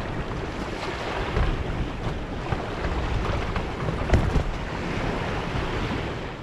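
Strong wind gusting against a tent, with wind rumbling on the microphone and a few sharp cracks, the loudest about four seconds in.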